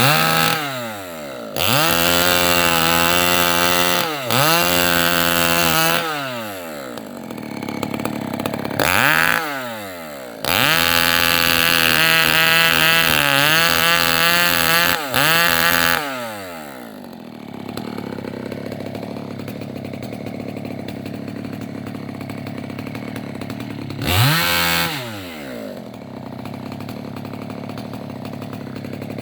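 Chainsaw revving up and cutting through the limbs of a felled rubber tree in several full-throttle bursts, dropping back between cuts. It then settles into a steady idle for the last twelve seconds or so, with one brief rev in the middle.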